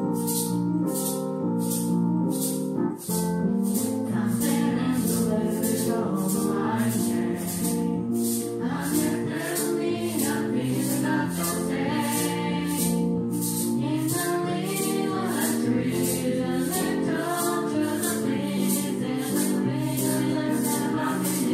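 A small group of young voices singing a pop song into microphones, with a hand shaker keeping a steady beat about twice a second.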